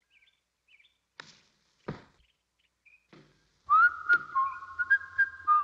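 Cartoon sound: a few tiny bird chirps and three short knocks, then from about three and a half seconds a loud whistled tune of held, gliding notes with a few sharp clicks.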